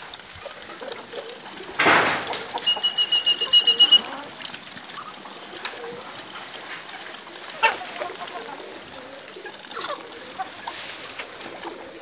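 Muscovy ducks and chickens feeding, with scattered light clicks of pecking. About two seconds in comes one loud call, followed by a high call that pulses rapidly for over a second.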